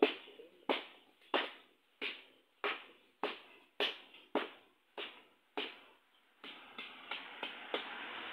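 A wooden stick tamping concrete mix into a hand-operated hollow-block mold: about ten evenly spaced knocks, roughly one every 0.6 s, then lighter, quicker taps near the end.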